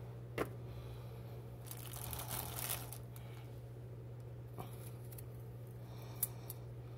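Paring knife on a radish: a sharp click, then about a second of crisp crinkly rustling, and two more small clicks later, over a steady low electrical hum.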